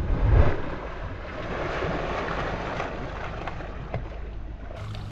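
A man plunging into the sea from a boat's bow: a heavy splash in the first half second, then the steady hiss and fizz of churned water around him as he surfaces.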